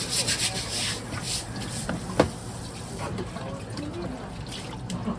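Wet kitchen sounds of a parrotfish being filleted with a knife on a plastic cutting board, with one sharp knock about two seconds in. Water is running or splashing, and voices are heard in the background.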